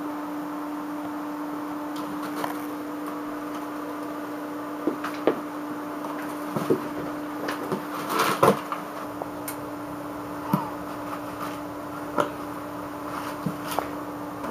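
Cats clawing and biting at a cardboard box: scattered scratches, rips and taps, the loudest cluster about eight seconds in. A steady hum runs underneath.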